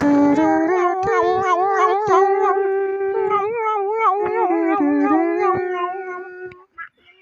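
Dog howling: one long, wavering howl lasting about six and a half seconds that stops shortly before the end.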